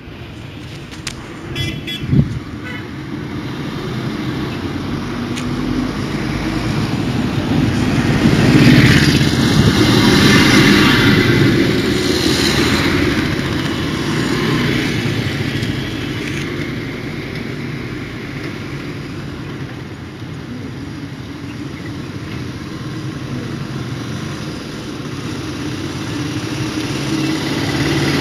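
Motorcycle engine running, growing louder about eight seconds in and easing off after twelve, with a sharp click about two seconds in.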